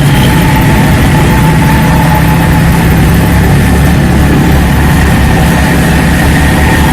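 Large passenger bus engine idling steadily through a loud aftermarket "setan" (devil) exhaust.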